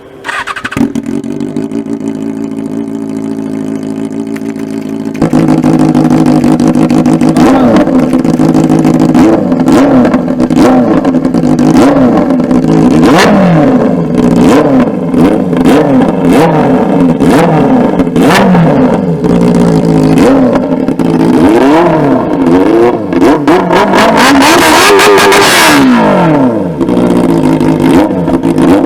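Benelli 600i's inline-four engine idling steadily through its exhaust, then louder from about five seconds in and revved up and down again and again, with a long high rev shortly before the end.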